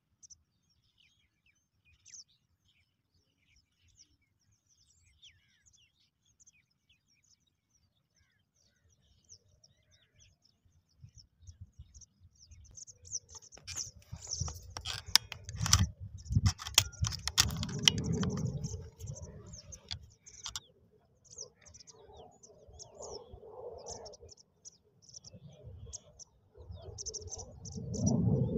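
A flock of starlings chattering in a tree with many high chirps and whistles, sparse and faint at first and then dense from about halfway through. A low rumble and a cluster of clicks come in around the middle and again near the end.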